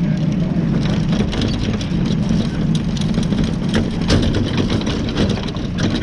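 Cadet wing kart's small single-cylinder engine idling close by, a steady low drone with frequent sharp ticks and rattles over it.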